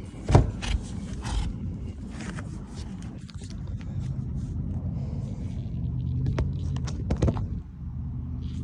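Blower of a Goodman package heat pump running with a low steady hum that grows stronger about halfway through, while parts are handled inside the unit with several sharp knocks and clicks, the loudest near the start.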